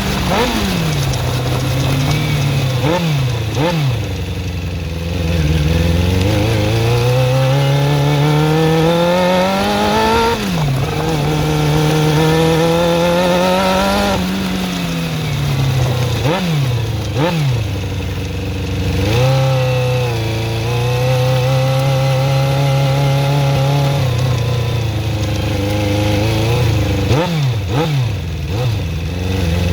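Suzuki GSX-R400 motorcycle engine running and being revved: it is held at raised revs, climbs slowly and drops back a few times, with several quick throttle blips. The engine has a horrible ticking that the owner suspects comes from the valve shims or the timing chain.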